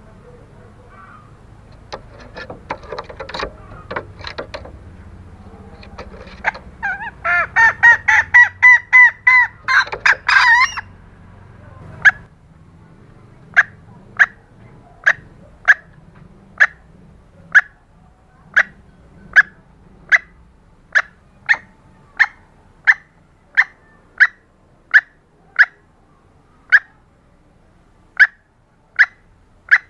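Female green junglefowl calling. A few faint notes, then a rapid run of loud cackling notes, then a steady series of short sharp clucks about one a second. This is the hen's call used to draw in males.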